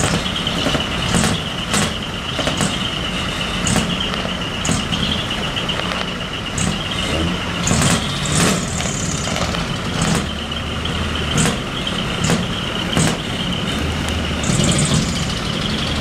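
Several heavy trucks idling together, a steady low engine rumble with a constant high-pitched whine over it. Short hissing bursts, like air releases, come about once a second.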